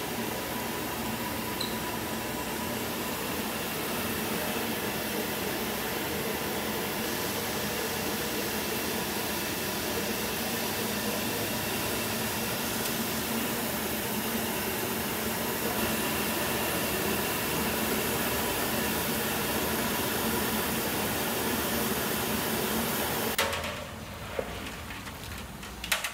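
Machine separating soybean lees (okara) from soy milk running with a steady whirring hum and noise as the okara is pushed out. The noise drops off sharply about a second or two before the end, leaving quieter room sound with a few light knocks.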